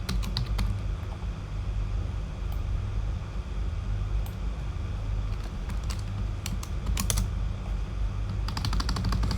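Typing on a computer keyboard: scattered keystrokes with a quick run of keys near the end, over a steady low hum.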